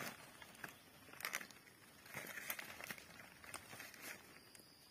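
Dry palm fronds crackling and rustling as they are stepped on and pressed underfoot, in irregular bursts of crunchy crackles.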